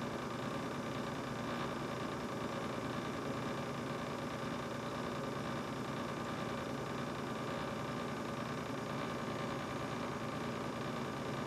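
Brand-new GE refrigerator running: a steady whirring hum with a few faint constant tones, unchanging throughout.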